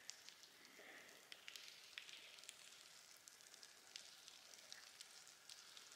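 Faint water drips falling irregularly, a few sharp ticks a second, echoing under a large sandstone rock overhang.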